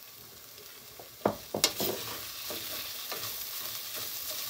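Chopped red onions in a stainless-steel sauté pan start to sizzle about a second in, as a spoonful of oil goes into the hot pan. A wooden spoon knocks sharply against the pan a few times, then keeps scraping as the onions are stirred over the steady sizzle.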